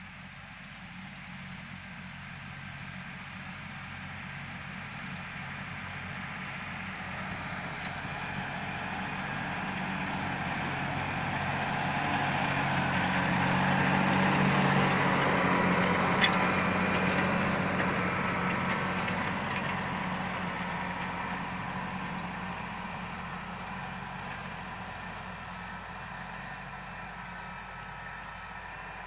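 John Deere tractor pulling a disc harrow through the soil: the engine and the rush of the discs grow steadily louder as it passes close by, at their loudest about halfway through, then fade as it moves away.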